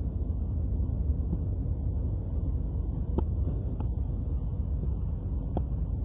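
Propeller airliner running: a steady low drone of engines and propellers, with a few faint clicks in the second half.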